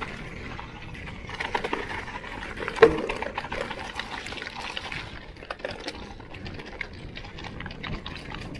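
Crunching and clattering of movement over a rough, rocky trail: a constant rough noise full of small knocks and rattles, with one loud knock about three seconds in.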